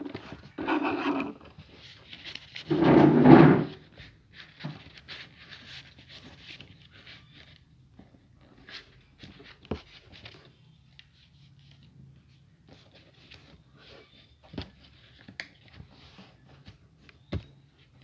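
Sheet of paper being handled and folded by hand on a hard board, with scattered light taps and creasing clicks. Two louder noises come in the first few seconds, the loudest about three seconds in, and a faint low hum runs underneath.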